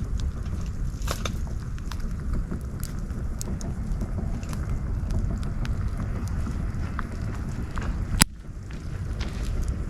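Campfire burning, with scattered small crackles and one loud sharp pop about eight seconds in, over a steady low rumble.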